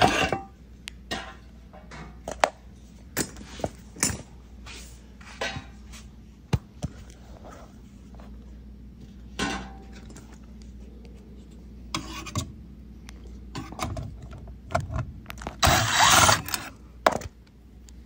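Scattered clicks, knocks and scrapes of a dishwasher's metal lower access panel and its screws being handled as the panel comes off, with a louder scraping burst near the end.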